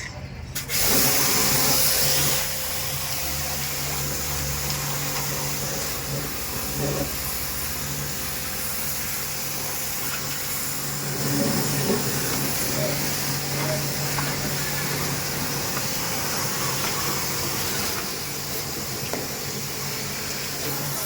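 Water spraying with a steady hiss, as in jet-washing an air conditioner during servicing. It starts abruptly about a second in, is loudest for the first second or so, then carries on steadily over a low hum.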